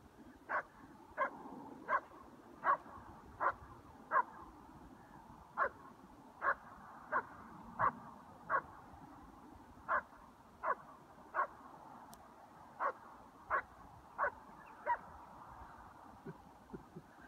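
A dog barking over and over: short single barks about 0.7 seconds apart, in runs of four to six with brief pauses between runs. A few quicker, lower sounds come near the end.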